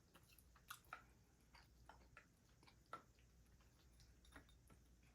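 Faint chewing of smoked ham hock and turkey leg meat: scattered soft mouth clicks and smacks, a dozen or so at uneven intervals.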